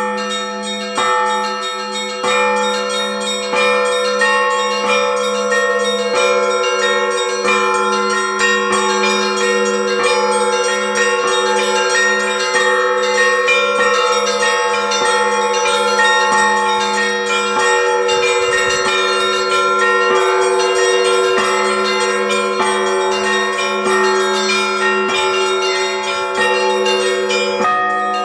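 Church bells ringing: several bells of different pitches struck in a quick, uneven pattern over the continuous hum of a low bell.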